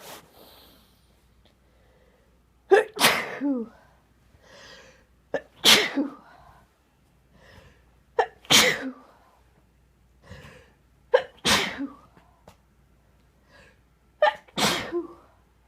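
A person sneezing five times in a row, about every three seconds, with a softer breath drawn in between sneezes.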